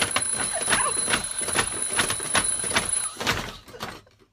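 Homemade slapping alarm machine striking over and over with its rubber hand, about three sharp slaps a second over a faint steady high whine, dying away near the end.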